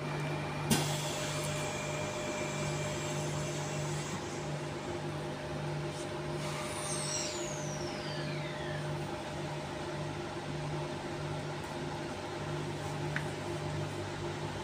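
Inside a stationary Transperth A-series electric train carriage: the steady hum of the train's onboard equipment, with a low pulsing tone. A sharp click comes about a second in, and a high whine falls in pitch around seven seconds in.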